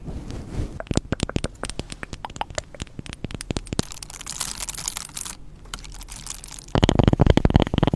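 Stones rubbed and clicked together close to the microphone: rapid, irregular clicking, a short rasping scrape about halfway, then louder, busier clicking near the end.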